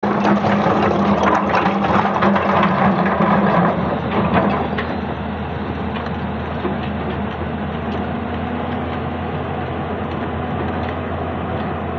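Hyundai 220-9S crawler excavator's diesel engine running, working hard for the first four seconds or so, with stones clattering and knocking as the bucket moves them. It then settles to a steady, quieter running.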